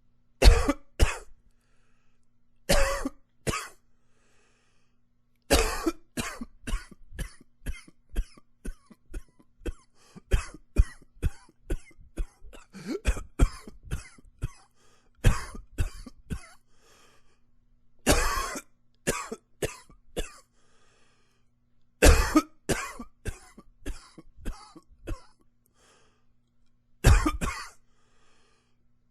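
A man coughing in fits. Loud coughs come every few seconds, in ones and short bursts, and in the middle a long run of quicker, shorter coughs, about two a second, lasts several seconds.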